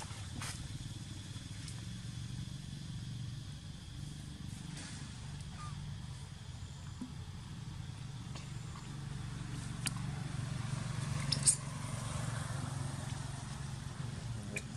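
Steady low outdoor background rumble. It swells a little from about ten seconds in, with a few short sharp clicks, the loudest about eleven and a half seconds in.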